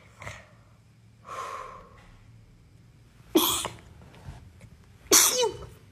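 A person sneezing twice, about two seconds apart, each sneeze a sudden loud blast, after a soft breathy intake about a second in.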